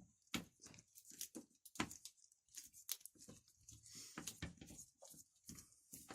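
Phillips screwdriver working the small bolts of an Ural chainsaw's starter housing: faint, irregular clicks and scrapes of the tip in the screw heads, with a longer scrape about four seconds in. The bolt heads are worn and stripped, which makes them awkward to turn.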